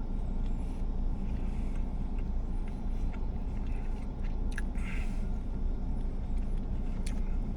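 A person chewing food over a steady low rumble, with a few short clicks about four and a half and seven seconds in.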